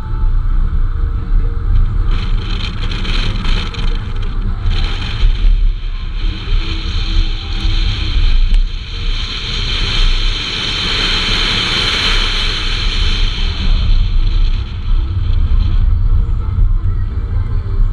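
A car engine and road noise as the car is driven hard, with a constant low rumble. A higher-pitched rushing noise comes in a couple of seconds in, fades, and returns more strongly in the middle before dying away.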